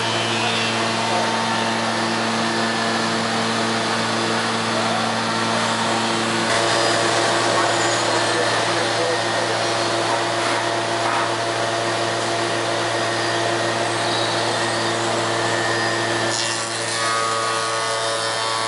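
Soukup Crafter window-joinery machining centre running with a steady machine hum and a woodworking noise over it. The pitch of the hum shifts about six seconds in and again near the end.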